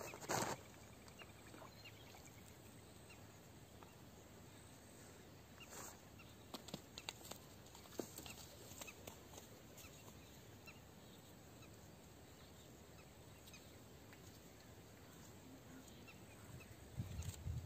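Near silence: a faint outdoor background with a few soft clicks and knocks, the loudest a short knock right at the start.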